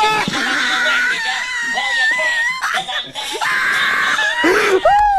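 A cartoon character's high-pitched scream, held for about two seconds and wavering in pitch, then a second shorter scream about a second later.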